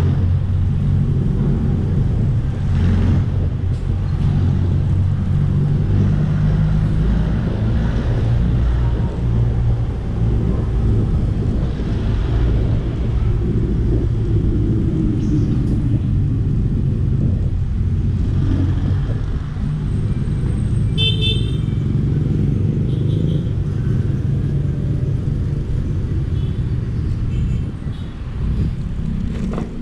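Steady low rumble of wind and road noise from a moving Tazer Mini electric kick scooter, with street traffic around it. A vehicle horn honks briefly about two-thirds of the way through.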